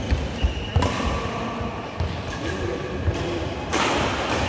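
Badminton doubles rally: sharp racket strikes on the shuttlecock, about a second in and again near the end, over the players' footfalls on the court.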